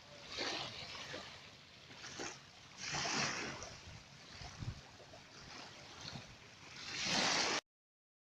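Water washing in irregular rushing surges, one every second or two, with no engine heard; the sound stops abruptly near the end.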